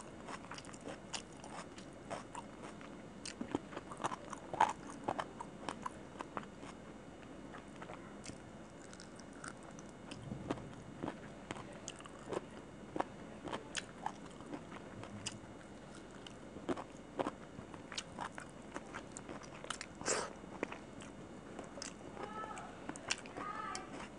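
Close-miked chewing of chicken curry and rice, many short, irregular wet clicks and occasional crunches of mouth and food.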